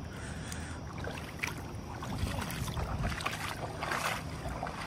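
River water flowing steadily, with wind rumbling on the microphone and a few faint clicks.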